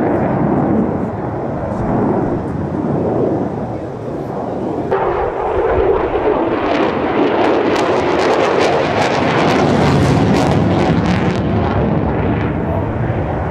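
Lockheed Martin F-35 fighter jet passing overhead, the loud rush of its single Pratt & Whitney F135 afterburning turbofan. The sound shifts abruptly about a third of the way in, then dense afterburner crackle takes over through the middle and fades near the end.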